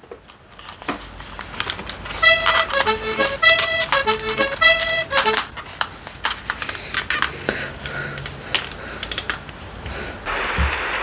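A short piece of music: a phrase of sustained chords played about three times in a row, with scattered sharp clicks and taps continuing afterward.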